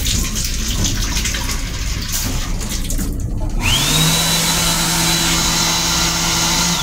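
Train lavatory sink faucet running water for about three seconds, then a built-in hand dryer starts: a quick rising whine that settles into a steady high blower whine over a low hum and rushing air, beginning to wind down at the very end.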